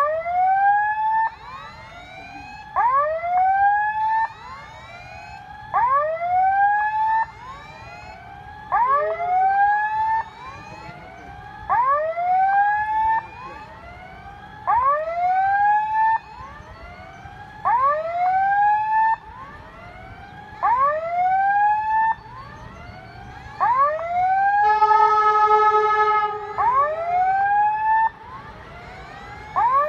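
Railway level-crossing warning signal sounding its electronic alarm: bursts of rising whooping tones about every three seconds, warning that a train is coming. About 25 seconds in, a horn sounds once, a steady note held for about a second and a half, from the approaching train.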